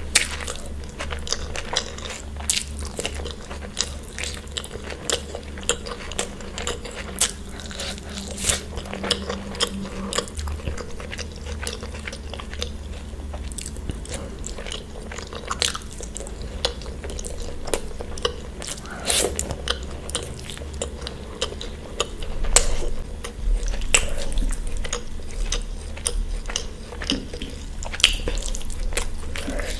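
Close-miked eating: bites, crunches and wet chewing, with many short sharp clicks and smacks spread irregularly through, over a steady low hum.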